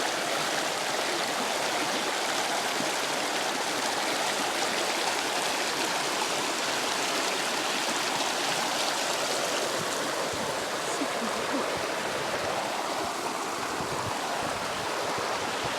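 A mountain stream running, a steady rush of water that holds even throughout.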